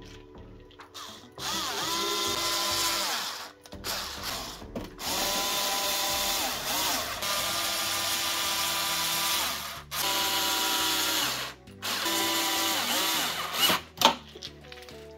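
Cordless screwdriver driving screws into a coffee machine's plastic housing: the motor whines in four runs of a few seconds each, the pitch climbing as it spins up at the start of each run. A few clicks come near the end.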